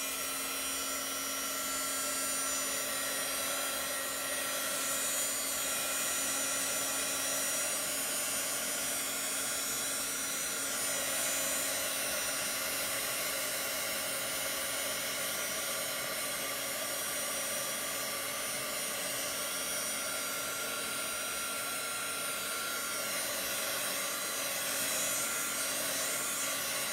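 Handheld hot-air dryer running steadily, drying freshly applied chalk paste: a constant blowing rush with a steady low hum under it.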